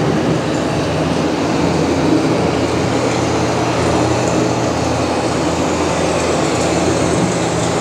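Steady low rumble with a rushing hiss, heard aboard a moving ride boat.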